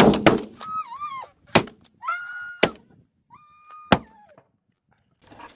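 Shotgun blasts, about five over the first four seconds, among geese honking, with three drawn-out honks between the shots.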